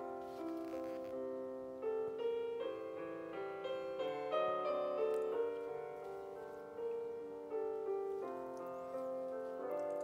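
Background piano music: a melody of single struck notes and held chords.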